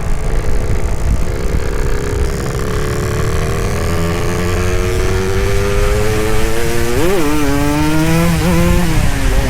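Two-stroke motorcycle engine pulling under acceleration, its pitch climbing slowly for several seconds. About seven seconds in it rises sharply and falls back, and it dips again near the end.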